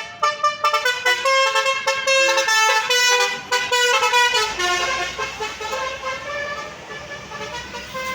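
Bus 'telolet basuri' musical air horn playing a tune of quickly changing notes. The notes are short and loud at first, then held longer, and after about four seconds they turn softer and slower as the tune fades.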